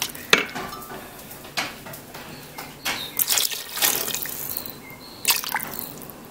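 Water pouring in a thin stream into a stainless steel Instant Pot inner pot full of beef stew, splashing and trickling into the liquid. Several sudden knocks come in between.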